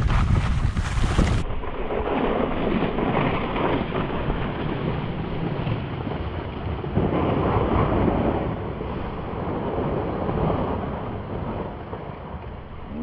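Wind buffeting the microphone: a loud, steady rushing noise with low rumbles. About a second and a half in it turns abruptly duller.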